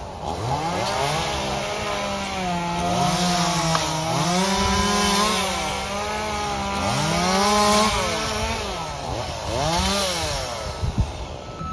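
Chainsaw running, its engine pitch rising and falling again and again as it is throttled up and down while cutting.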